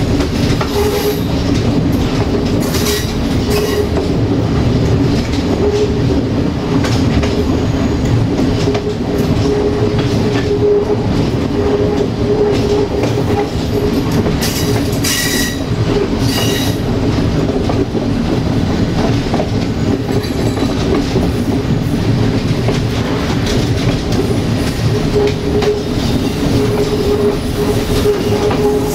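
Passenger coach wheels running on jointed track, clicking over rail joints, with a squealing tone from the wheels that comes and goes and a few short high squeaks around the middle.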